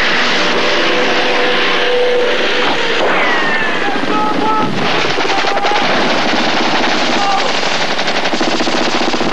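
Machine-gun fire in rapid bursts over a continuous din of battle noise, with a few short whistling tones through the middle.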